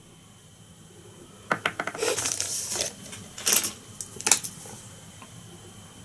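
Small hand-handling sounds at a fly-tying bench: a run of light clicks and brief rustling, with two sharper clicks near the end, as tools and the glue are picked up and used on the fly.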